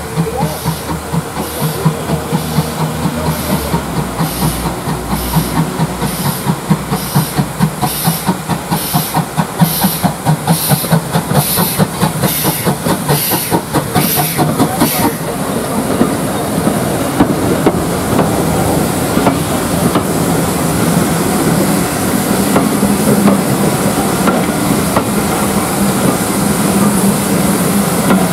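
Steam tank locomotive No. 813 pulling away with a train of coaches, its exhaust beating regularly with hissing steam. The beats stop sharply about halfway through, and the coaches then roll past with a steady rumble and wheel clatter.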